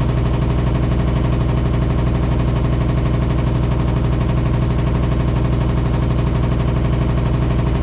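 Hitachi SF-150TCV 15 kg washing machine spinning, a loud, steady low drone with a fast, even pulse. The owner asks whether this is normal; he finds it abnormally loud for a new machine whose level he has checked, and does not know the cause.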